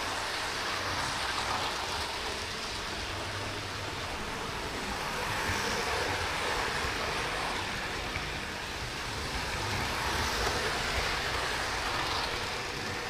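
Model train running around the layout: a steady rumble of wheels on rails and motor, swelling and easing slightly twice.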